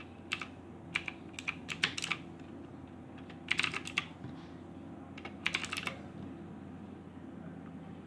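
Keys being typed on a Motospeed Inflictor mechanical keyboard: short bursts of sharp key clicks with pauses between them, stopping about six seconds in. A steady low hum sits under it.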